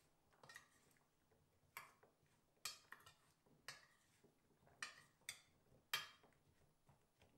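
Faint clinks and scrapes of a metal spoon against a small stainless steel pot as raw potato cubes are tossed in a dry spice mix, about eight irregular strokes.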